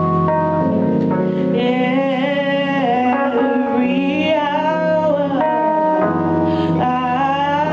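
Live music: a singer holding long notes with vibrato over sustained keyboard chords.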